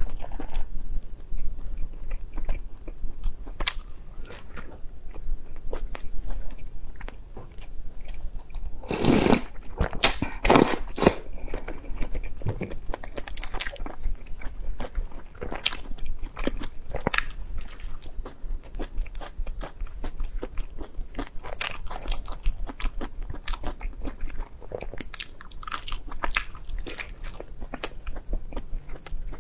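Close-up eating sounds of a person biting into and chewing a crisp, flaky baked pastry: repeated crunches and small wet clicks of chewing. The loudest, densest crunching comes about nine to eleven seconds in.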